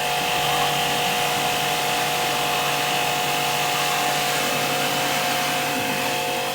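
Small electric motor running steadily, a constant whine with a hum beneath, like a power tool held at speed.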